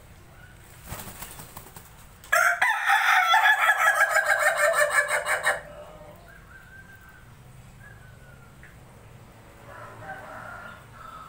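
Ayam ketawa (Indonesian laughing chicken) rooster giving its laughing crow, a long rapid stuttering run of notes lasting about three seconds and falling slightly in pitch. It follows a short burst of wing flapping about a second in. A few faint, softer calls come near the end.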